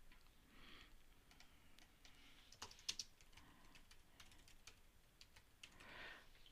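Faint typing on a computer keyboard: irregular keystroke clicks as a file name is typed, with a few louder clicks near the middle.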